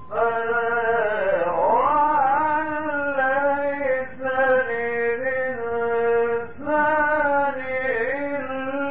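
A man chanting the Quran in a slow melodic recitation, holding long sustained notes and sliding between pitches in ornamented turns, with a few brief pauses for breath.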